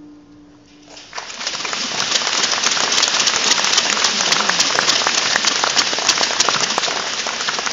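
Large audience applauding, many hands clapping. The clapping starts about a second in, swells quickly, and slowly dies down near the end.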